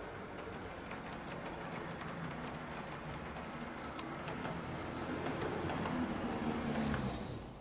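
Model Class 158 diesel multiple unit running along the track toward the camera: a motor hum and rumble with quick clicks of wheels over rail joints, growing louder, then dropping away sharply near the end.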